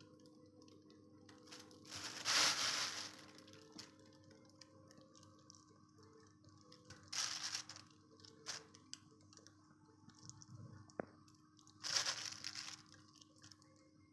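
A thin plastic bag crinkling three times, about five seconds apart, as fingers rummage among fresh anchovies. Between the crinkles come faint small wet clicks of the fish being gutted by hand.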